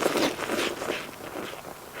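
A person chewing a mouthful of food, with irregular soft crunching and wet mouth sounds.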